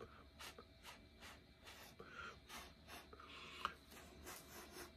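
Faint, repeated puffs of breath blown through a drinking straw to push wet acrylic paint across the canvas, with breaths drawn in between. A sharp click about three and a half seconds in is the loudest moment.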